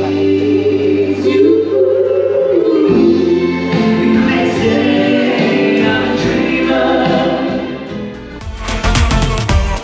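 A stage cast singing together as a choir over backing music, in long held notes. About eight seconds in this gives way to dance music with a steady beat.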